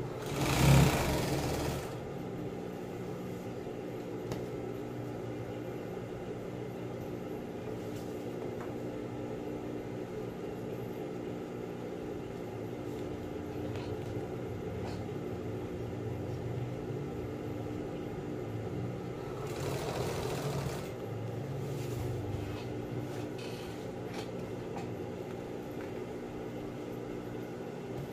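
Industrial sewing machine's motor humming steadily. Stiff vinyl tarpaulin is handled at the machine and gives two short noisy rustles, the louder about a second in and a weaker one near twenty seconds in.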